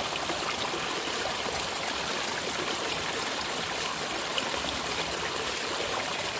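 Water running steadily along a small clear-water ditch, an even rushing trickle.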